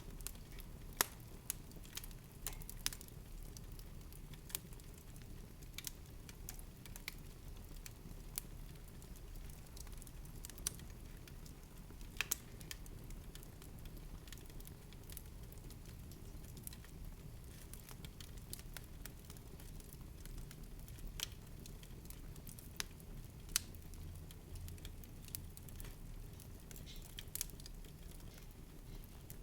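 Irregular sharp crackles and pops scattered over a low, steady rumble, like a crackling ambience bed.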